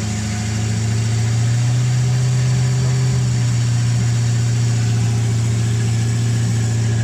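Mercruiser 5.7 small-block V8 marine engine running at idle, picking up slightly about a second in and then holding steady. This is the engine the owner is checking for a noise from its front.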